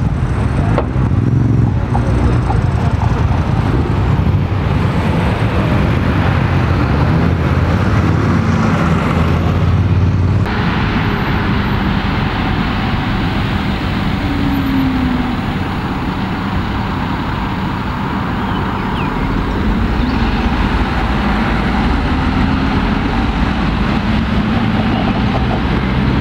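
A Mercedes-Benz city bus pulling through a junction, its engine running with a strong, steady low drone. About ten seconds in the sound changes abruptly to steadier street traffic as another city bus and a car go past.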